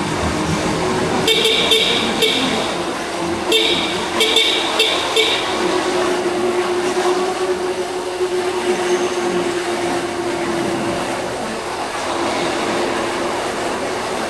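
A vehicle horn tooting in two quick runs of short beeps, starting about a second in and again around three and a half seconds in. Under it is a steady drone of city traffic and the Yamaha Crosser 150 motorcycle running.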